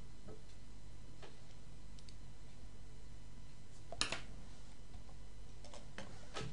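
Scattered clicks of a computer mouse and keyboard, about six in all, the loudest about four seconds in, over a steady low hum.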